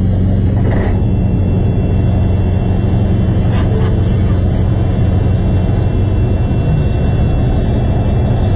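An engine running with a steady low rumble, and a faint tick about a second in.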